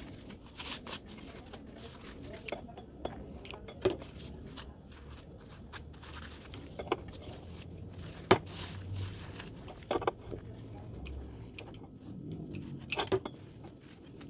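Handling noise while fabric is hot-glued onto a cardboard strip: soft rustling of the cardboard and cloth, with scattered sharp taps and knocks on the table, the louder ones about four, eight, ten and thirteen seconds in.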